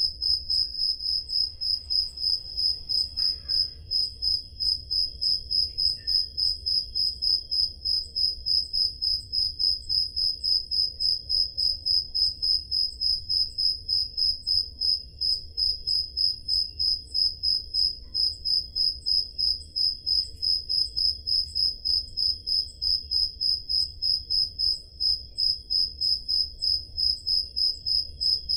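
Crickets chirping: one loud cricket close by repeats a high-pitched chirp in a fast, even rhythm, with a fainter, lower-pitched cricket chirping steadily behind it.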